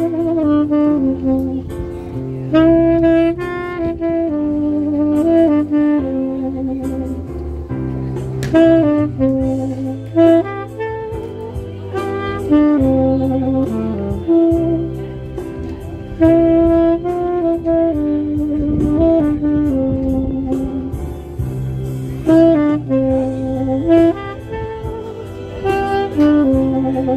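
Tenor saxophone playing a slow, lyrical melody of held and stepping notes, with a low bass line underneath that changes every couple of seconds.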